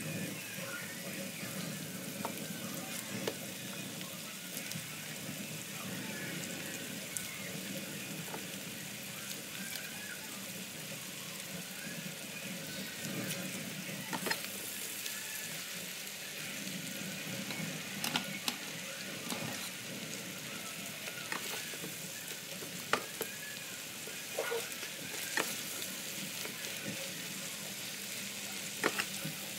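Chicken and egg sizzling in an electric skillet, stirred with a slotted spatula that scrapes and clicks against the pan now and then. About halfway, a pile of Chinese kale goes in and is tossed in the hot pan.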